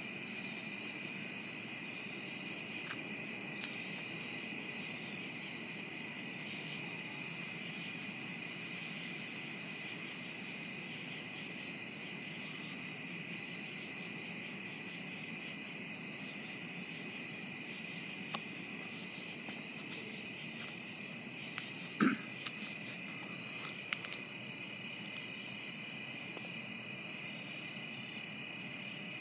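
Steady night chorus of crickets and other insects, several high-pitched trills layered together without a break. A short sharp knock stands out about three quarters of the way through.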